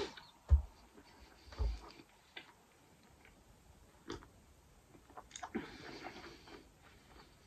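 Close-up eating and drinking sounds: a mouthful of sandwich being chewed, with two dull thumps in the first two seconds. Scattered mouth clicks follow, then a short slurp of hot coffee from a mug about five and a half seconds in.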